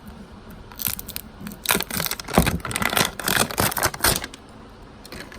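Plastic wrapping of an L.O.L. Surprise ball crinkling and tearing as it is peeled open by hand, a run of crackles and rustles from about one to four seconds in.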